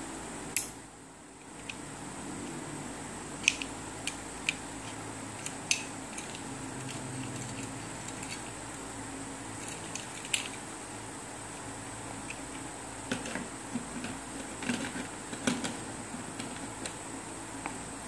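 Scattered sharp clicks and light metallic clinks of a metal carabiner keychain clip being handled and clipped onto a plastic fidget toy, over a steady background hiss. The loudest click comes just after the start, and a quick run of clicks comes a few seconds before the end.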